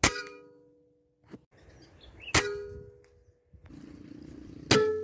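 Three PCP air rifle shots about two and a half seconds apart, each a sharp crack followed by a ringing ping that fades over about a second.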